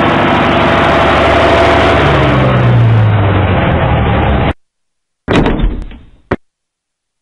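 Van engine running as the van pulls in, its pitch falling as it slows, then cutting off abruptly about four and a half seconds in. A short clunk and a sharp click follow about a second later.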